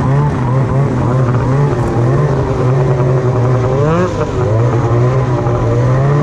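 Snowmobile engine running and revving, its pitch rising and falling with the throttle, with a quick sharp rev about four seconds in.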